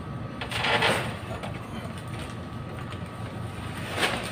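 Handling noise from wiring work: a short scraping rustle about half a second in and another starting just before the end, over a steady low rumble.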